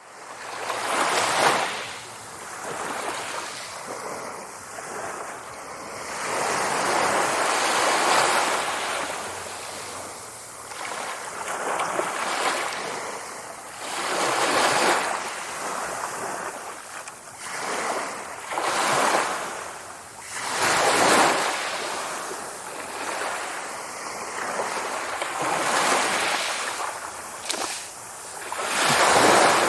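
Sea waves surging and washing in, a rushing noise that swells and ebbs every few seconds, with stronger surges about a second in, around eight seconds, around twenty-one seconds and near the end.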